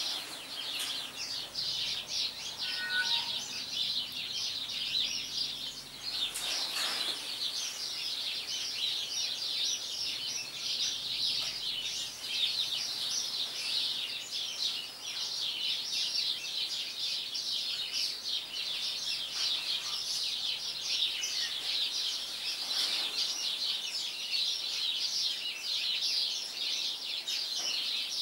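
Many birds chirping at once: a continuous, dense high chatter with no breaks.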